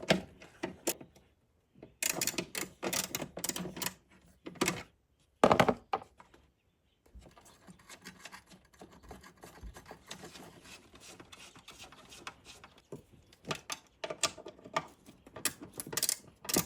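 Ratchet with a 7 mm socket clicking in quick runs as it turns out the small screws on a carbon-fibre air intake box, with a few louder knocks of the tool against it.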